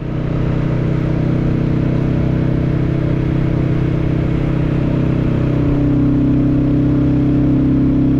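Royal Enfield motorcycle engine running steadily, its pitch shifting slightly about five and a half seconds in.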